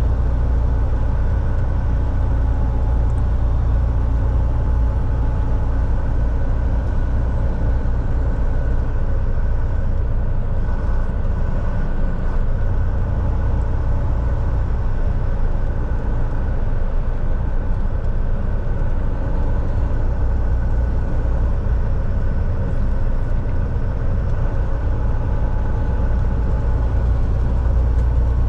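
Volvo semi truck driving at a steady pace: a constant low engine drone with road rumble, even throughout with no gear changes or sudden events.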